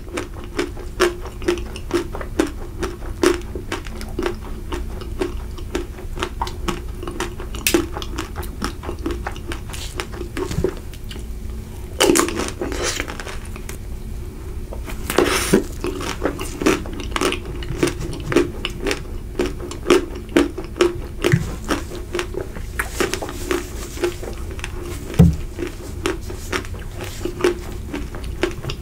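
Close-miked biting and chewing of a chocolate-coated Magnum ice cream bar: a dense run of small crunchy clicks as the chocolate shell cracks, with a few louder bites partway through.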